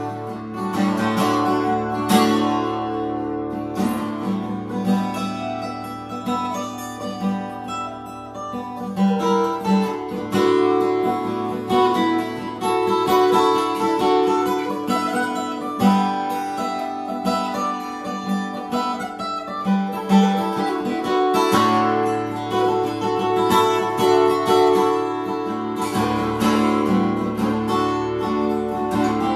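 Acoustic guitar played solo, strummed chords mixed with picked notes, with no singing.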